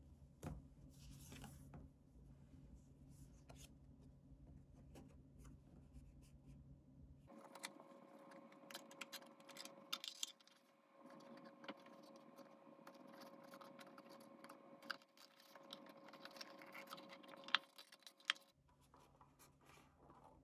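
Quiet crinkling and scraping of thin paper card being handled and folded into a small milk-carton model, with scattered small clicks and crackles, busiest in the middle.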